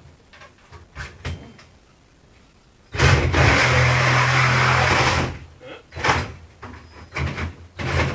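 Corded reciprocating saw (Milwaukee Super Sawzall) cutting into a refrigerator cabinet in bursts. After a few light clicks, the saw runs loudly for about two seconds from about three seconds in, gives several short blips, then runs again near the end.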